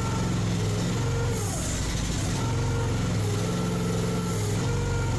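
Mini excavator engine running steadily while the hydraulics are worked through their range of motion. About one and a half seconds in, the engine pitch dips under load and recovers about a second later, with a hiss during the dip and again near the end.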